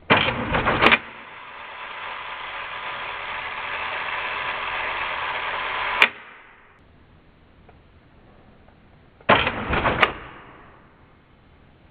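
Mechanical clunks and clicks of a Mamiya RB67 medium-format camera's mirror and shutter being fired: a short clattering clunk at the start and another about nine seconds in. Between them a steady hiss lasts about five seconds and is cut off by a sharp click.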